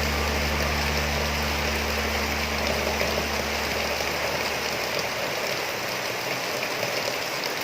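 Steady rain: an even hiss of rainfall. A low steady hum under it fades out over the first few seconds.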